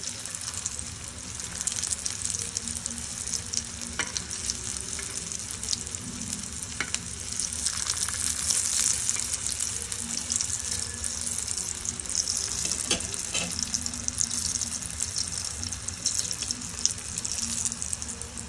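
Chicken kabab patties frying in hot oil in a black wok, a steady sizzle and crackle of bubbling oil. A metal spatula clicks against the pan a few times.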